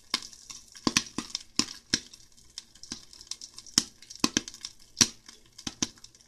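Popcorn kernels popping in hot oil in a lidded pan on the stove: irregular sharp pops, a few each second, with the batch well along and the popped corn nearly filling the pan.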